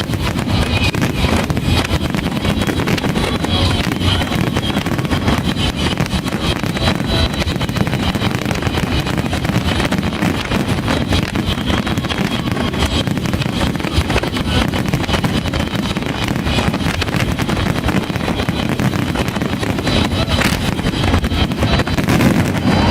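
Fireworks display: a dense, unbroken run of bangs and crackling over a low rumble, with wind noise on the microphone.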